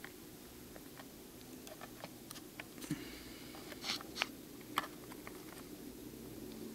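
Light, scattered clicks and taps of a laptop memory module and the opened laptop being handled, a few sharper ones in the middle.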